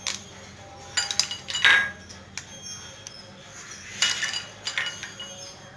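A metal spoon and ice cubes clinking against glass bowls and a tall glass as ice is spooned into a carrot milkshake. There are about six sharp clinks at uneven intervals, the loudest about two seconds in.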